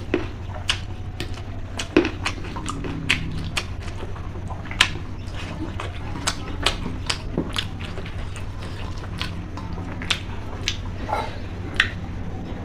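Close-up mouth sounds of eating rice with chicken curry: chewing and lip-smacking, irregular wet clicks a few times a second over a steady low hum.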